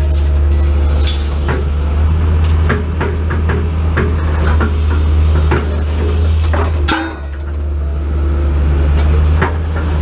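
Excavator's diesel engine and hydraulics running steadily, with scattered clinks and knocks of scrap metal as the hydraulic sorting attachment picks and drops pieces; one sharp metal clank about seven seconds in.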